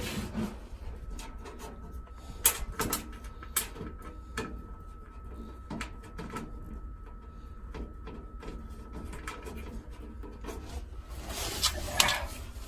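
Scattered small clicks and knocks of screws being started by hand into a refrigerator's metal rear service panel, with some rustling near the end.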